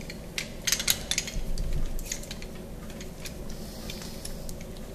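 Light metal clinks and rattles of a steel flaring tool being handled as its yoke is worked off the clamping bar. The clicks come thickest in the first couple of seconds and thin out after.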